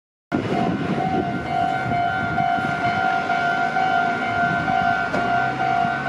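Japanese level crossing's electronic warning bell sounding its repeating 'kan-kan' alarm, starting abruptly a moment in. A low rumble runs underneath and eases off near the end.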